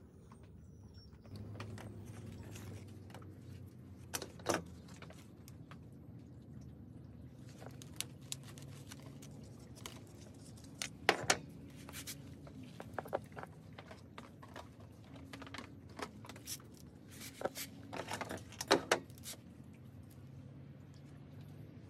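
Hands working around a potted bonsai: rustling and crinkling of a plastic strip pulled away from around the pot, with scattered clicks and taps from handling the pot. A few louder clicks stand out, about 4, 11 and 19 seconds in.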